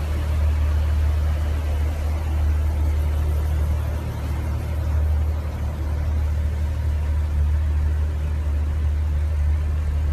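Car engines idling: a steady deep rumble with no revving.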